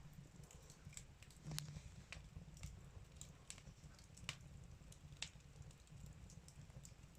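Wood fire crackling faintly in a fireplace: irregular sharp pops and snaps, a few louder ones about one and a half, four and five seconds in.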